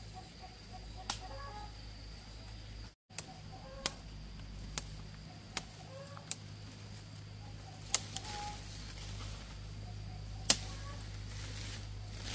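Chickens clucking faintly, over a steady low hum. About ten sharp knocks or clicks come at irregular moments, loudest about eight and ten and a half seconds in.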